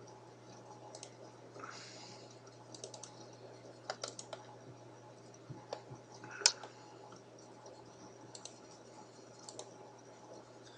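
Computer keyboard keys and mouse buttons clicking in small scattered groups, with one louder click about six and a half seconds in, over a low steady hum.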